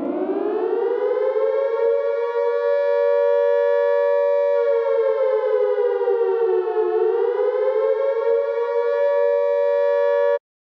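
Outdoor warning siren sounding a two-note chord: it winds up in pitch, holds steady, sags lower about seven seconds in and climbs back, then cuts off abruptly near the end.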